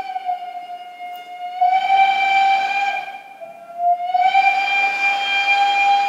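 A recorded work whistle played back over loudspeakers: long held whistle blasts on one steady high tone, the pitch sagging slightly as a blast fades and rising again as the next starts, about three blasts in a row.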